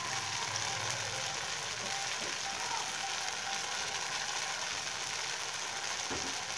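Gram-flour (besan) batter with two okra pods frying in hot oil in a kadai: a steady, even sizzle.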